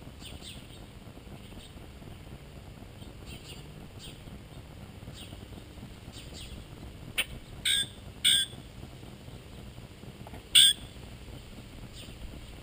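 Small birds chirping faintly throughout, with four short, loud calls in the second half, three close together and then a final one that is the loudest.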